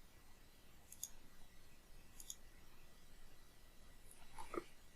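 Two faint computer mouse clicks, about a second in and just over two seconds in, over near-silent room tone, with a soft faint sound near the end.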